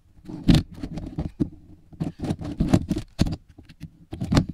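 Irregular thumps, knocks and rustles as hands work self-adhesive carbon-fibre vinyl wrap onto a plastic bezel, trimming it with a utility knife.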